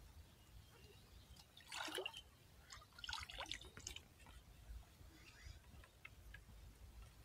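Faint splashing and dripping of shallow water as a woven bamboo fish trap is pressed into place by hand, with a couple of slightly louder splashes about two and three seconds in.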